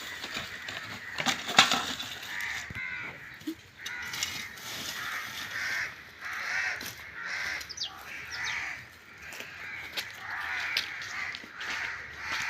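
Harsh bird calls repeating about once a second, with a rake scraping and clicking over the dirt now and then.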